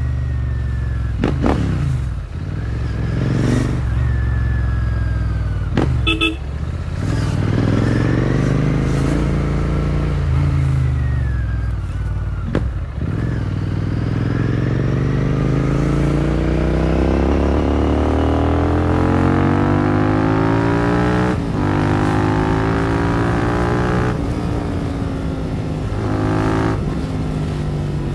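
Royal Enfield Continental GT650's 648 cc parallel-twin engine breathing through a Powerage short-cone aftermarket exhaust, ridden on the road. Its note rises and falls with the throttle, with short sharp dips about two, six and thirteen seconds in and a long rising pull past the middle.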